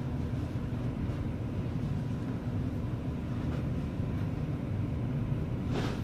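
A steady low rumble, like a motor running, with a brief hiss near the end.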